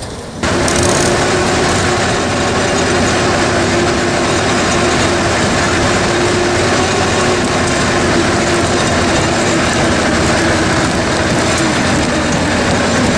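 Engine of an Attex amphibious ATV running steadily under way, heard from on board, with a dense rushing and rattling noise over it. The sound cuts in abruptly about half a second in.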